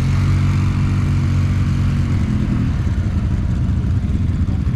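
Small off-road vehicle engine running close by: a steady hum that turns into a rougher, lower rumble about three seconds in.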